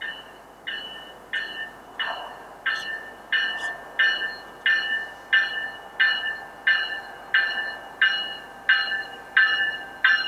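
Railroad warning bell ringing steadily, about three strikes every two seconds, each strike a clear ringing tone that dies away. The strikes grow somewhat louder as a commuter train approaches.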